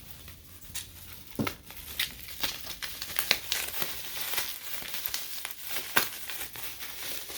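Packing material crinkling and rustling as an item is unwrapped by hand, in irregular crackles with a few sharper snaps.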